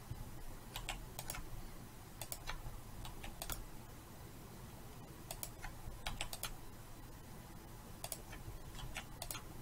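Computer keyboard keystrokes: short, sharp clicks, often in pairs or small clusters, scattered every second or so as Ctrl+R shortcuts are pressed.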